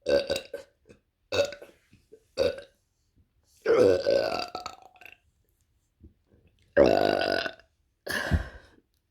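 A woman burping six times in a row: three short burps, then two long, drawn-out ones, and a shorter one near the end.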